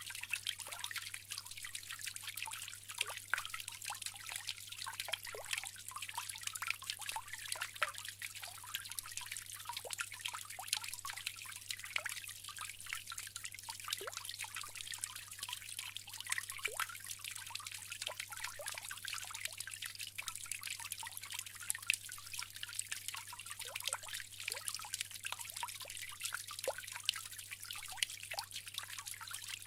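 Bamboo water fountain trickling steadily, with many small drips and plinks of water.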